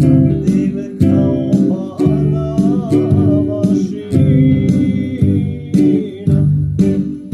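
Music: strummed guitar over a steady beat, with a voice singing a wavering line about two seconds in.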